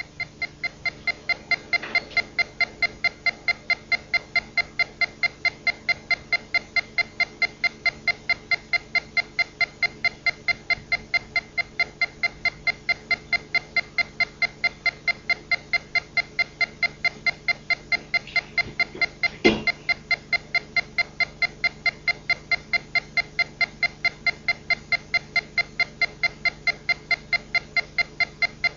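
A steady, rapid train of short electronic beeps, about three or four a second, with one sharper click about nineteen seconds in.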